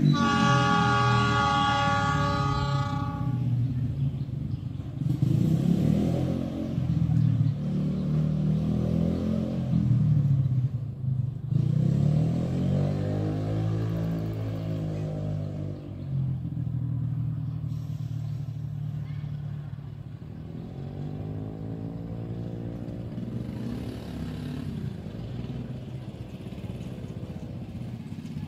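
A train horn sounds a steady chord for about three seconds. Then a passenger train runs on the rails with a low rumble and wheel clatter that fades as it moves away.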